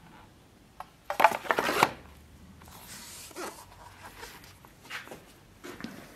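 Steel messer blade sliding into its leather scabbard about a second in: a short, loud burst of scraping and clicks. A few softer knocks and rubs follow.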